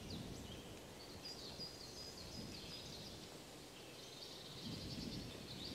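Faint birdsong: small birds chirping in quick runs of high notes, over low outdoor background noise.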